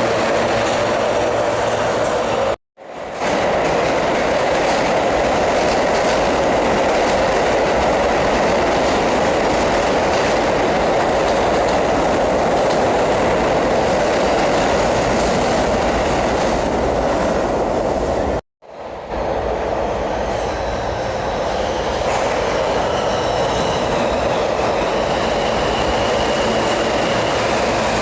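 New York City subway trains running through a station: a steady, loud rumble and clatter of wheels on the rails, with a faint whine in the later part. The sound cuts out abruptly for a moment twice.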